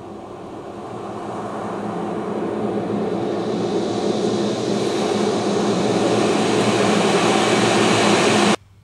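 A roar of noise over a low steady hum grows steadily louder for about eight seconds, then cuts off abruptly near the end.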